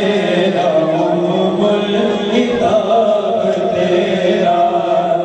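A group of men singing a Malayalam devotional song together into microphones, in a chant-like style with long held notes.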